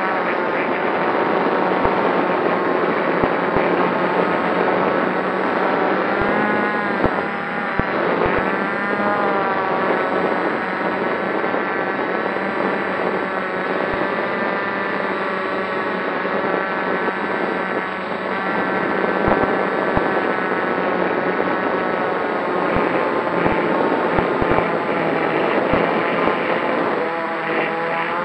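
Multirotor drone's electric motors and propellers whining in flight, heard from the camera mounted on the drone itself. The copter is carrying its maximum payload, and the motor pitch wavers up and down as the throttle is corrected, most clearly a few seconds in and again near the end.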